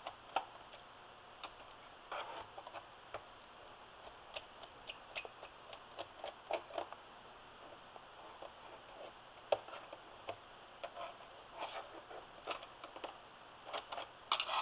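Irregular small clicks and taps of a small screwdriver working the screws on a laptop's plastic bottom cover, with a quick cluster of louder clicks near the end.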